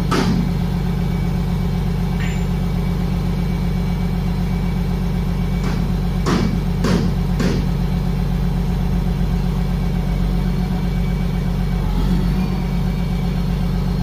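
Wheel loader's diesel engine idling steadily, heard from the operator's cab, with three sharp clicks about six to seven and a half seconds in.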